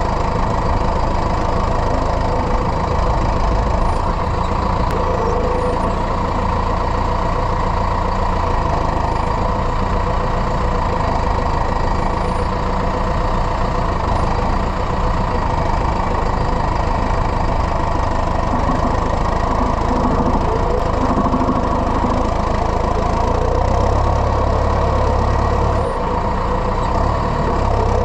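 Tractor engine running steadily at an even speed, with no change in pitch through the stretch.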